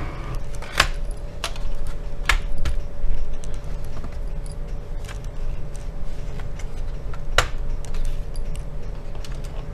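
Sharp plastic clicks and snaps from the Acer Aspire E15 laptop's case as its keyboard deck is pried at the edges with a thin blade, three loud clicks standing out among smaller ticks.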